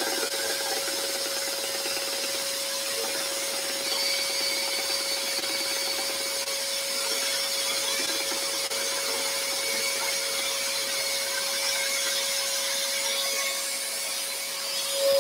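Scroll saw running with its blade cutting through a timber board: a steady hum with the rasp of the cut over it. The sound stays even throughout, easing slightly near the end as the bracket cut is finished.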